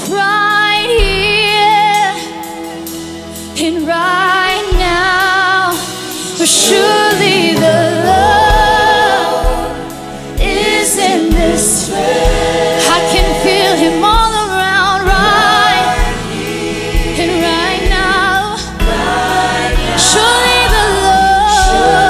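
Live gospel worship music: a group of men and women singing together into microphones, held notes with vibrato over a sustained keyboard-like backing. A steady low drum beat comes in about five seconds in.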